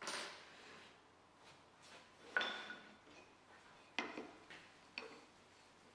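Wooden folding deck chair worked by hand: a scrape near the start, then three sharp clacks of the rails and their metal pivot fittings knocking together, the first ringing briefly.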